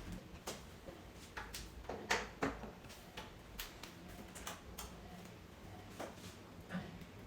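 Scattered sharp clicks and light knocks at irregular intervals, the loudest two close together about two seconds in, over a faint steady hum.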